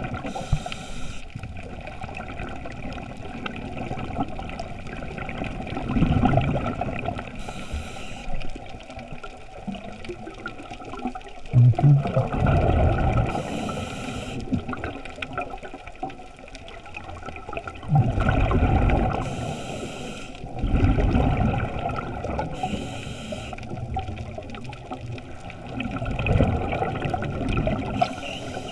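Scuba diver's regulator breathing, heard underwater through a GoPro's waterproof housing: a short hissing inhale every five or six seconds, each followed by a low, rumbling gush of exhaled bubbles.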